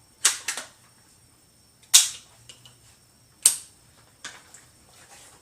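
A handful of sharp, separate clacks of hard parts knocking together as a gun vise and rifle are handled and adjusted: two close together at the start, a louder one about two seconds in, another about a second and a half later, and a fainter one near the end.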